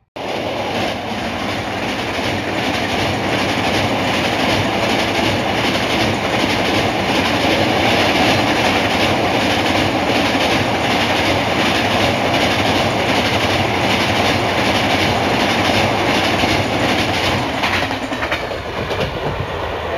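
An Indian Railways express train hauled by an electric locomotive passes close by at speed. Its coaches make a steady loud rumble over a bridge, and the wheels clatter over the rail joints.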